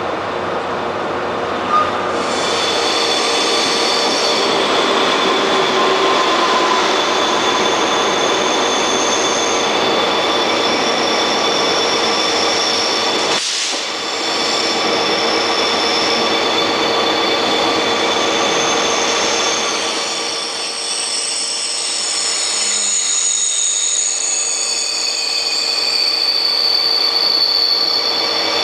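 Korail passenger train running alongside a station platform, with steady rail noise and high whining tones. Then a KTX high-speed train rolls past the platform with rail noise and high whines that shift in pitch.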